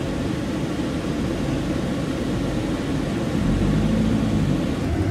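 Car engine and road rumble heard from inside the cabin during slow parking-lot driving, the low rumble swelling louder about three and a half seconds in.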